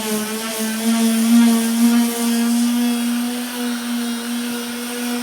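Electric sander running steadily against a truck bed's sheet metal and body filler, a constant motor whine whose pitch wavers slightly with hand pressure in the first couple of seconds.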